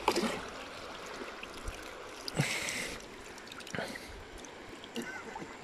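River water running steadily, with a few light knocks and a brief rush of noise about two and a half seconds in.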